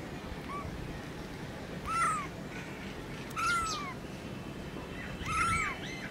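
Young kitten meowing: a faint short meow, then three high, arched meows about a second and a half apart, over steady low background noise.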